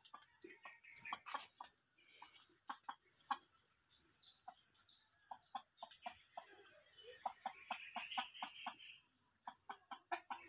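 Chicken clucking, a run of short clucks at about three a second in the latter half.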